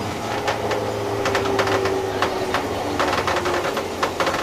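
JR East 201 series electric train running, heard from inside the passenger car: a motor whine that slowly falls in pitch over a low hum, with frequent sharp clicks and rattles from the wheels and car body.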